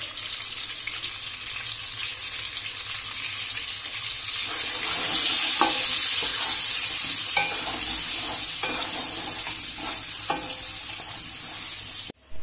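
Whole potatoes sizzling in hot mustard oil in a kadhai, turned with a wooden spatula that knocks now and then against the pan. The sizzle grows louder about four to five seconds in.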